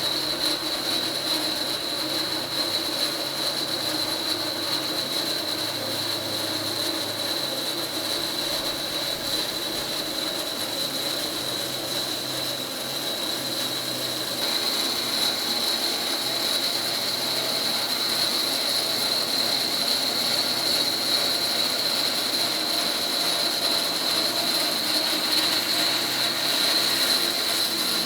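A sawmill cutting through a large black walnut log into slabs: a steady engine drone with a constant high-pitched whine, a little louder in the second half.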